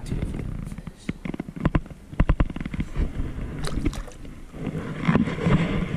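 A released largemouth bass splashing back into the water beside a boat, with water sloshing and several sharp knocks and clicks.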